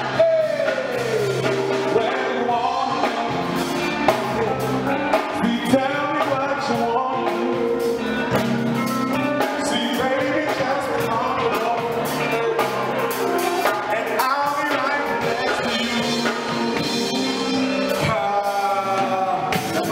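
Male lead vocalist singing with a live band, backed by keyboards and a drum kit with regular drum hits.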